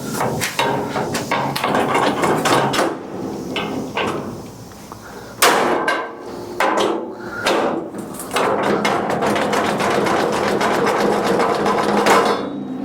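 Hammer blows on a welded steel bar, knocking it off its welds. It is a run of sharp strikes: a few heavy separate blows about halfway through, then fast repeated blows toward the end.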